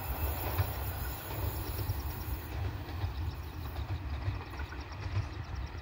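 Locomotive-hauled passenger train running on the line at a distance, a steady noise under irregular low rumbling.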